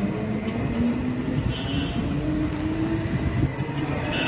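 Steady road and traffic noise from inside an open battery-powered e-rickshaw riding along a street, with a faint, gently rising hum through the middle.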